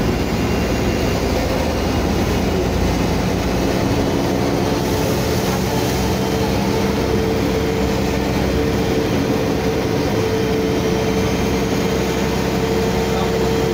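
Mercedes-Benz O500UA articulated bus's rear-mounted OM 457 inline-six diesel running with an open, unrestricted exhaust, heard from inside the rear of the cabin. Steady engine note throughout, with a steady whine joining about five seconds in.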